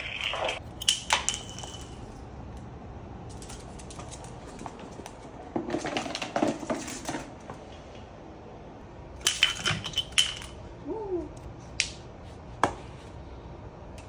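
An African grey parrot's beak knocking and pushing a small plastic bottle cap across a hard floor, making light clattering clicks in several short bursts.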